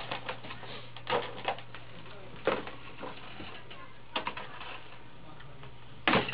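Spoons and cutlery tapping and clinking against plates and bowls at a table, a handful of separate clicks over a faint steady low hum.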